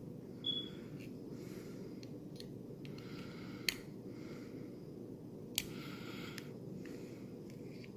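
Two sharp clicks, about two seconds apart, from handling a small sliding-blade utility knife, over a steady low hum.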